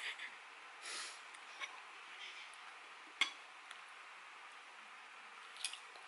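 A knife and fork scraping and clinking on a plate while cutting toast: a short scrape about a second in, one sharp clink a little after three seconds in, and a smaller clink near the end.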